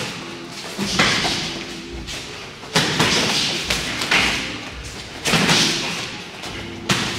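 MMA sparring strikes landing with thuds, about six over a few seconds, each followed by a short hiss.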